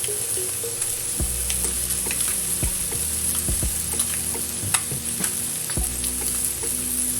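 Chicken pieces sizzling on a hot non-stick grill pan, a steady hiss with frequent small crackles and pops, over a low hum.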